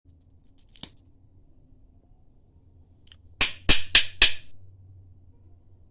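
Crisp peanut-and-jaggery brittle (chikki) snapped apart by hand: one sharp crack about a second in, then four loud cracks in quick succession near the middle. The sound of brittle that has set hard and crunchy.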